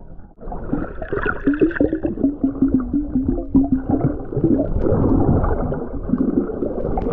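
Underwater camera audio while a snorkeler's hand reaches into seagrass: muffled water sloshing and gurgling that jumps in loudness about half a second in, with a wavering low drone for a couple of seconds in the middle.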